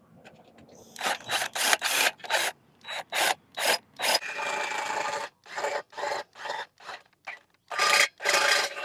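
Short scraping strokes on wood, about two to three a second, with one longer drawn-out stroke about four seconds in.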